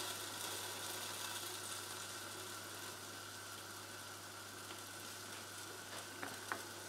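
Smoked bacon lardons frying gently in oil in a stainless steel stock pot on a low heat: a faint, steady sizzle over a low hum, with two small clicks near the end.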